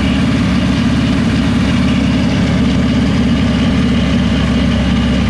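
Honda K-series four-cylinder engine in a Subaru idling steadily, heard from beneath the car on the lift.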